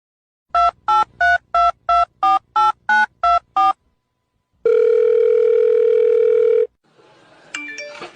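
Telephone keypad dialing tones: ten quick two-tone beeps, then one long steady tone lasting about two seconds.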